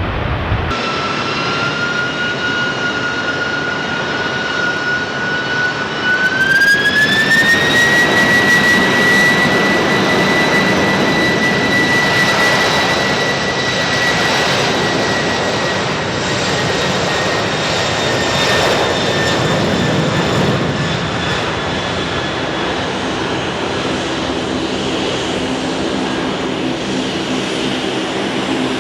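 Boeing 747 jet engines spooling up for departure: a high whine that climbs in pitch about six seconds in and then holds, over a steady loud roar.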